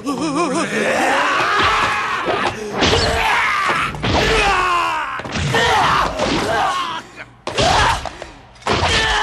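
A young man screaming and yelling in rage in long, wavering cries broken by short pauses, with thuds of blows landing between them.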